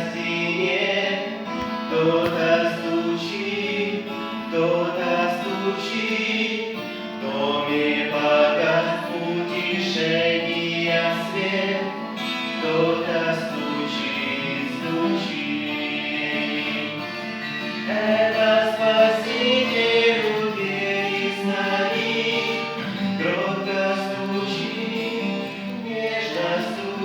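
A choir singing a gospel hymn, sustained sung lines continuing throughout.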